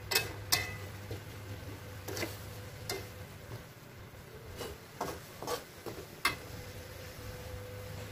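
Metal spatula scraping and knocking against an aluminium wok, in irregular strokes, while stir-frying ground chili, garlic and shallot paste in oil until the oil separates out. A low steady hum runs underneath.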